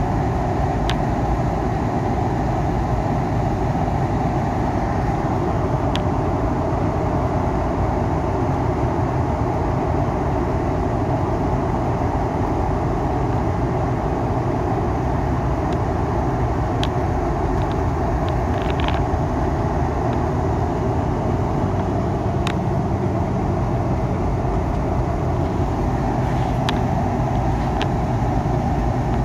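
Heavily loaded truck driving: steady engine and road noise, with a few faint clicks.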